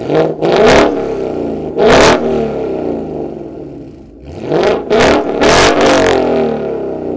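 Ford Mustang GT's 5.0 Coyote V8 through a Corsa Xtreme cat-back exhaust, free-revved while parked in several quick, loud throttle blips, each rising and falling in pitch and dropping back to idle between them.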